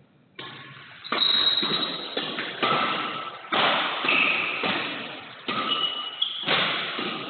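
Badminton rackets striking a shuttlecock during a doubles rally: about six sharp hits, roughly one a second, each followed by a long echo in a large metal-clad hall.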